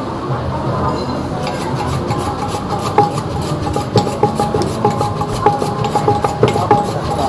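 Metal kitchen utensils clinking against cookware at a food stall, about two strikes a second with a short ring to each, starting about a second and a half in over a steady low background noise.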